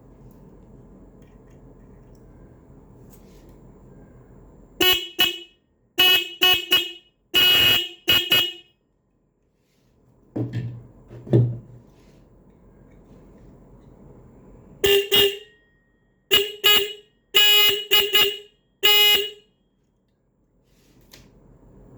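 A 12-volt electric car/bike horn sounded in short honks: two runs of about seven honks each, a few of them held a little longer, the runs about ten seconds apart. A couple of low thumps fall between the runs.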